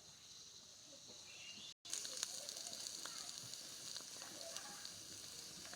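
Food frying in hot oil in a pan: a steady sizzle with scattered pops and crackles. It drops out for an instant about two seconds in, then comes back louder.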